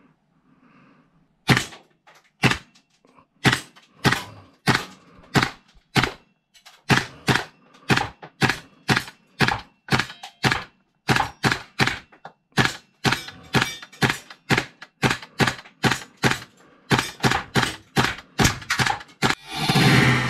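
Airsoft gun fired semi-automatically at a target board: a long string of sharp shots and hits, about two a second at an uneven pace. A louder rushing noise swells in near the end.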